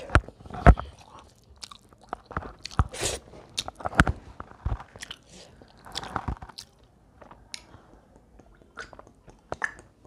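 Close-up mouth sounds of a person eating a rice-and-curry meal by hand: irregular chewing, lip smacks and small crunches. In the second half she drinks from a plastic water bottle.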